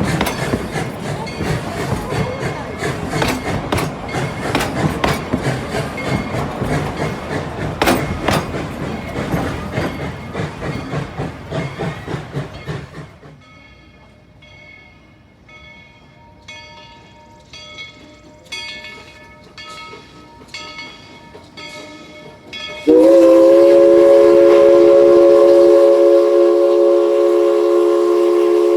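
Tweetsie Railroad No. 190, a 2-8-2 Mikado steam locomotive, working with loud steam noise and rapid knocks for about the first half. Its bell then rings about one and a half strokes a second. About 23 s in, its chime steam whistle sounds one long, loud blast that runs to the end.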